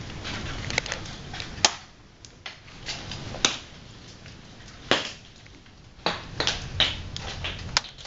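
Hailstones striking a hard surface in irregular sharp cracks and clatters, some much louder than others, over a steady low rush of the storm.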